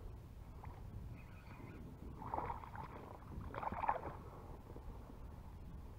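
Hooked fish thrashing and splashing at the water's surface, two short splashes about two and three and a half seconds in, the second the louder, over a steady low rumble of wind and water on the kayak.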